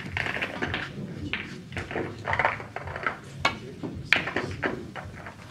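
Snooker break-off: the cue tip strikes the cue ball, then the cue ball hits the pack of reds with sharp clicks of ball on ball, the loudest clack about four seconds in.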